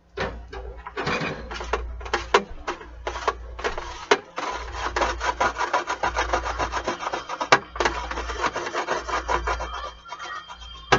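Wooden spoon scraping and knocking against a metal baking tray while stirring steamed rice in bacon grease: a quick, continuous run of scrapes broken by sharp taps.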